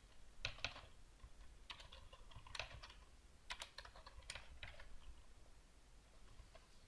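Faint computer keyboard typing in short bursts of keystrokes, stopping after about five seconds.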